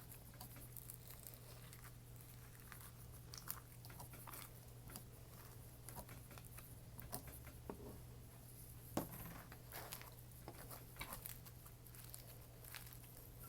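Faint crackling and popping of a crunchy floam slime full of foam beads being squished and poked by hand, in scattered small clicks over a steady low hum.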